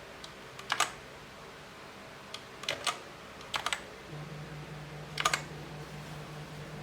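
Booox K87 mechanical keyboard with blue (clicky) switches being pressed: sharp key clicks in short bursts of two or three keystrokes with pauses between. A low steady hum sets in about four seconds in.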